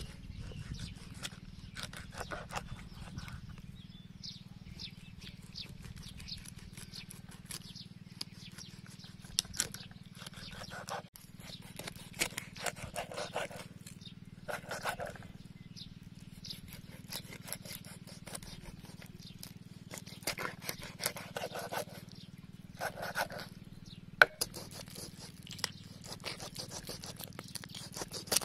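Knife cutting a whole fish into steaks on a wooden chopping board: crunching, scraping strokes as the blade saws through skin, scales and bone, coming in short bursts, with taps of the blade on the board.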